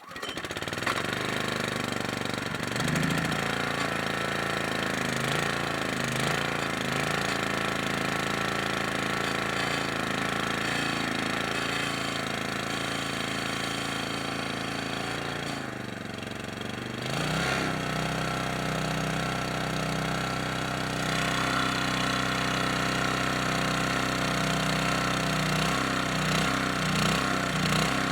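Older Falkenburg pressure washer's small gasoline engine catching right at the start and running steadily, with a brief dip in speed about two-thirds of the way through before it picks back up. It starts easily despite old fuel in the tank.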